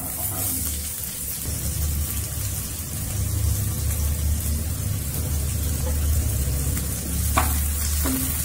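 Chopped onions sizzling in hot oil in a nonstick frying pan, the sizzle starting suddenly as they drop in and then running steadily, with a low steady hum underneath. A few sharp crackles come near the end.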